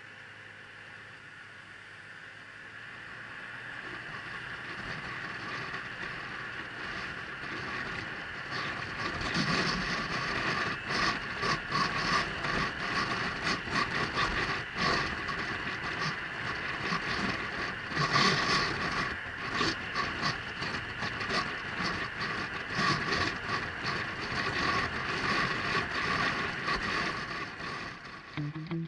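Riding noise of a Honda Silver Wing 600 maxi-scooter in motion: wind rush with gusty buffeting over the engine and road noise. It builds steadily over the first ten seconds as the scooter gathers speed, then carries on at that level.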